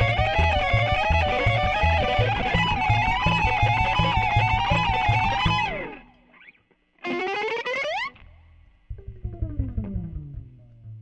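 Instrumental music on electric guitar and stand-up bass. A wavering guitar melody plays over a steady pulsing bass line and stops abruptly about halfway through. After a short pause comes a quick rising guitar slide, then a slow falling slide near the end.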